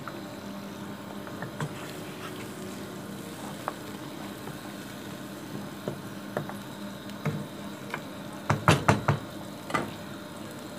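Mutton and taro stew simmering in a wok, its watery gravy bubbling steadily. A cluster of light knocks comes near the end.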